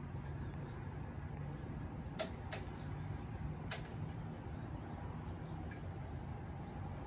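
Wind blowing across the microphone, a steady low rumbling noise, with a few short sharp clicks a couple of seconds in and again about a second later.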